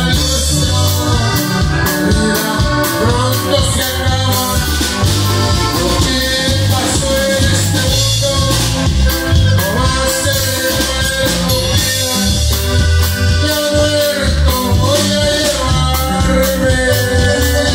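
Live norteño conjunto playing a song: button accordion, electric bass and drum kit keeping a steady beat, with a man singing into a microphone.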